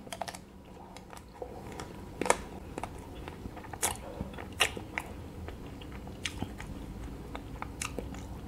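Close-miked eating of a chocolate-coated ice cream bar: bites crack the hard chocolate shell, followed by chewing. A scattering of sharp crunches runs through it, the loudest at about two, four and four and a half seconds in.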